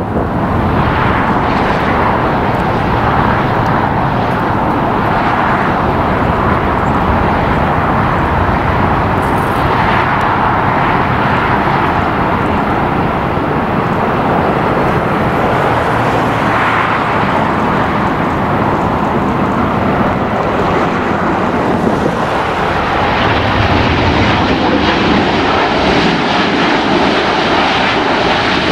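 Airbus A380's four jet engines on final approach, touchdown and rollout: a loud, steady jet rumble and rush that turns hissier in the last few seconds.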